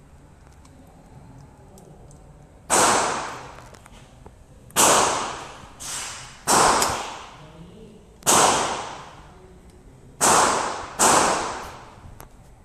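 SIG Sauer P320 SP pistol firing single shots: six loud shots spaced one to two seconds apart, each echoing for about a second, with one fainter shot among them.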